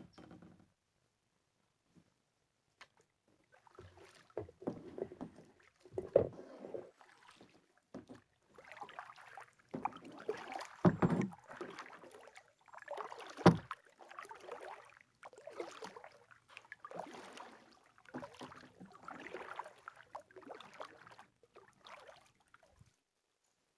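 Kayak paddling with a double-bladed paddle: the blades swishing and splashing through the water with each stroke, starting about four seconds in and going on irregularly about once a second. A few sharper, louder knocks stand out among the strokes.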